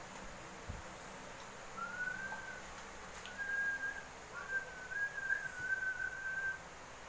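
Someone whistling: a clear single whistled tone in three short phrases, the last one longest and wavering up and down in pitch.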